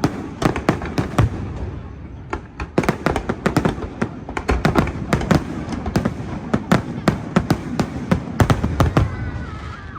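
Aerial fireworks display: a dense barrage of booms and crackling bangs, several a second, thinning out near the end.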